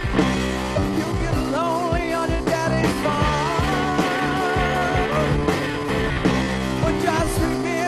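Rock music: a band with electric guitar and drums, a wavering lead melody line running over a steady beat.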